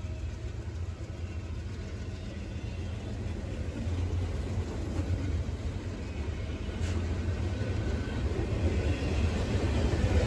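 Double-stack intermodal freight train's container cars rolling past: a steady low rumble of wheels on rail that grows louder near the end.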